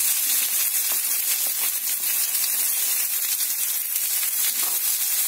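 Hot oil sizzling in a frying pan as steamed potato and carrot cubes are tipped in among frying onion and curry leaves, a steady hiss with a few faint spatula scrapes.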